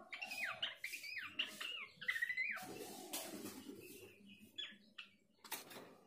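Pelanduk semak (Horsfield's babbler) calling in quick whistled notes that sweep up and down, dense for the first few seconds and then sparser. A short scuffling rustle comes about three seconds in and again near the end.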